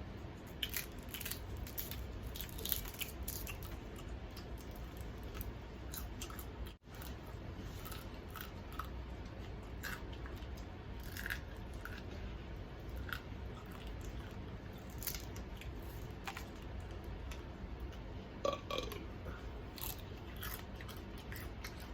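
Close-miked chewing of crispy fried chicken: scattered crunchy clicks and mouth smacks over a steady low background hum.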